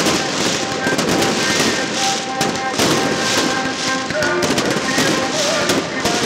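Dense, continuous crackling and popping of fireworks and firecrackers going off inside a burning falla monument, with no break. A few steady tones are held over the crackle.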